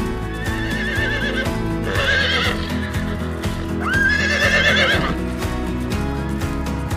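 A horse whinnying three times, each a wavering, quavering call, the last and loudest about four seconds in, over background music with a steady beat.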